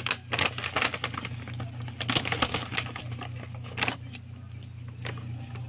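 Shopping bag and product packaging being handled: a busy run of crinkles and small clicks for about four seconds, then only a few, over a steady low hum.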